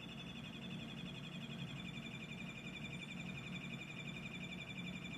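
REM doll ghost-hunting sensor sounding its electronic alert: a faint, steady high warbling tone over a low hum. The investigators take its sound for the device's battery being drained.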